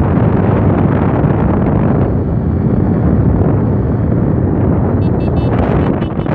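Wind rushing over the microphone of a Yamaha FZ ridden hard in fourth gear, the bike's single-cylinder engine running under it. The sound eases slightly near the end as the bike slows.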